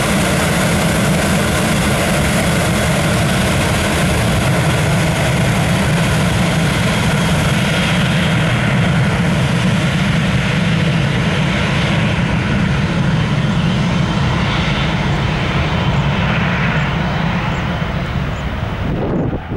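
Dassault Falcon 7X business jet's three turbofan engines at takeoff power, a loud, steady jet noise with a deep low rumble. The high-pitched part slowly fades over the second half, and the sound drops off sharply just before the end.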